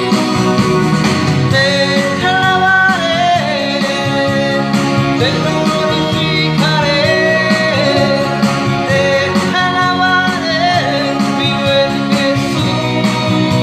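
A man singing a Christian worship song into a microphone, with held notes that bend in pitch, over steady instrumental accompaniment.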